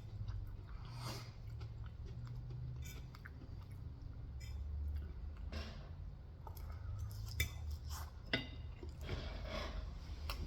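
A person chewing and biting Korean fried chicken, with soft wet chewing and a few sharper crunches in the second half.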